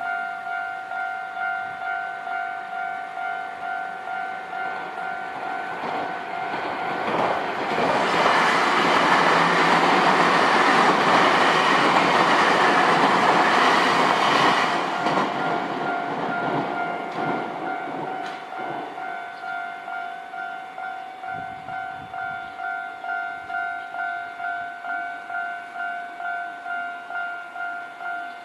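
Railway level-crossing warning bell ringing steadily at about two dings a second, while a Nankai electric train runs over the crossing from about 7 to 15 seconds in, its rumble and wheel noise swamping the bell before fading away; the bell keeps ringing after the train has gone.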